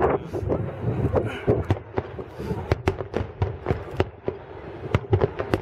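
Fireworks display finale: shells bursting in a rapid, irregular run of sharp bangs and cracks, several a second.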